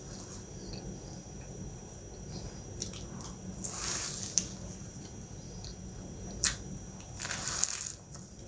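Close-miked eating of a cream-filled milk pie pastry: biting and squishy chewing, with louder crackly bites about four seconds in and again near the end, and a few sharp clicks.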